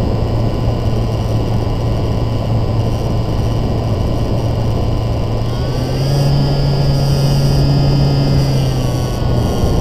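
Radio-controlled model aircraft's motor and propeller heard from an onboard camera, a steady drone over loud wind rush. About six seconds in the pitch rises as the throttle opens, and it drops back near the end.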